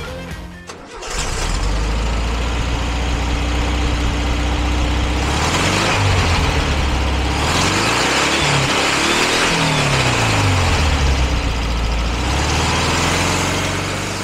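Air-cooled flat-four boxer engine of a 1974 VW T2 pickup starting about a second in and running steadily. From about five seconds in, the revs rise and fall several times as the pickup drives off, then settle back to a steady run.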